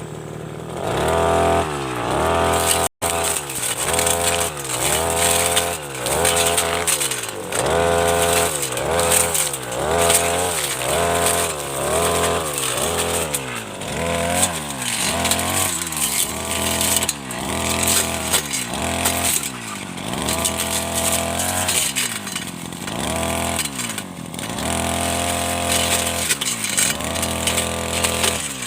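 Brush cutter engine running hard with a blade fitted, revving up and falling back again and again, about once a second, as the blade cuts through woody senduduk shrubs.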